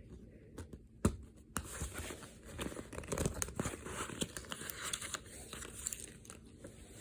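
Crinkling and rustling of a movie disc case's plastic and paper packaging being handled, with two sharp clicks about a second in.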